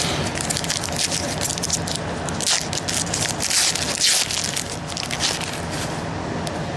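Plastic foil wrapper of a football trading-card pack crinkling as the pack is opened and the cards handled, in quick, dense crackles with louder bursts about two and a half and three and a half seconds in.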